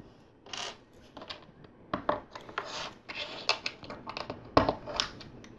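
Plastic LEGO pieces being handled: irregular clicks and clatter as parts are picked from a pile and pressed together, with rustling in between and a louder clatter about four and a half seconds in.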